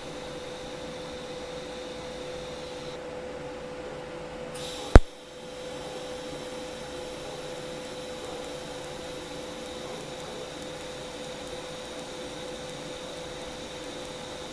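TIG welding arc on stainless steel, a steady hiss with a faint steady hum. About five seconds in a single sharp, loud crack stands out, after which the steady hiss carries on.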